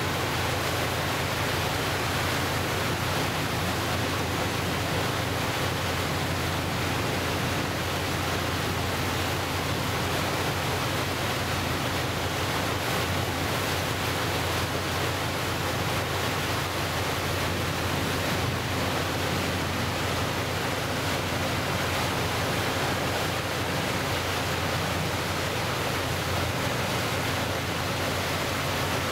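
Steady rush of water churned along a moving boat's hull and wake, mixed with wind, over a low, even engine hum.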